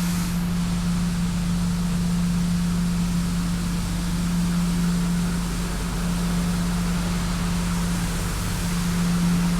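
Tymco 435 regenerative-air street sweeper running while sweeping: a steady, unchanging hum over a constant hiss.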